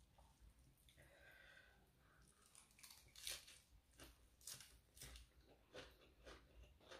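Close-mic eating sounds: slurping rice noodles and chewing spicy papaya salad, a series of soft wet smacks about twice a second from a couple of seconds in.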